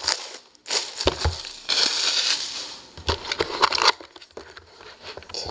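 A cardboard hockey-card box, a 2011-12 Panini Rookie Anthology hobby box, being opened by hand: irregular rustling and scraping of cardboard and wrapping, with a few light knocks as the lid is worked open.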